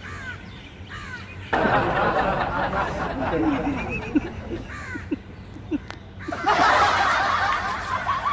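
People laughing under their breath, getting louder about a second and a half in and again near the end, with a few short bird calls.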